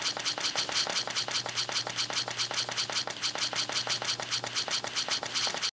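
Intro sound effect: a rapid, even clicking rattle, about eight clicks a second over a low steady hum, that cuts off suddenly near the end.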